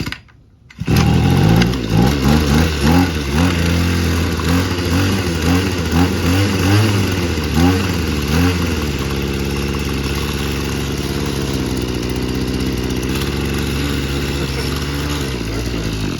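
Two-stroke weed eater (string trimmer) engine, running without its broken primer bubble. It cuts out briefly at the start and catches again within a second. It is then revved up and down in repeated blips for several seconds before settling to a steady idle.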